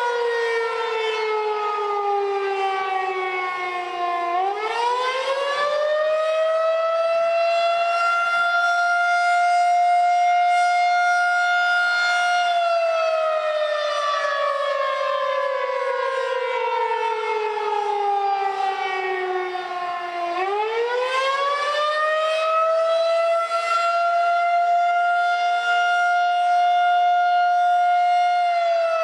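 Outdoor tornado warning siren sounding a test wail: the pitch slides slowly down, sweeps back up over a few seconds, holds steady, then slowly falls again, rising twice in this stretch, with a fainter steady tone underneath.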